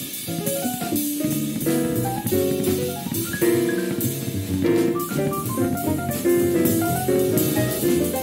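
Small-group jazz: a drum kit with cymbals keeps up a busy, continuous pulse under piano and other melodic instruments playing many short notes.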